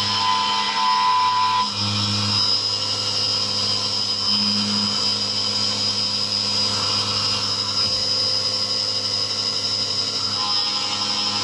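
SkyfireCNC SVM1-VMC vertical mill cutting aluminium with a carbide end mill under flood coolant. A steady high spindle whine runs over a cutting tone that shifts every few seconds as the tool moves through the cut.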